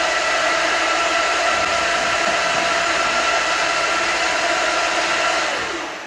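Feed cart's auger motor running steadily as it conveys feed through the overhead arm and chute into a pig trough, with a steady whine over the whir; it winds down near the end as the feeding stops.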